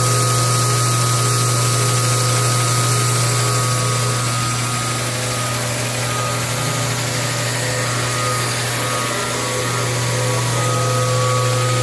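Electric double-wheel knife grinder running steadily while a Damascus steel knife blade is ground against it: a constant motor hum with a few steady whining tones under an even grinding hiss. It eases slightly in loudness through the middle and comes back up near the end.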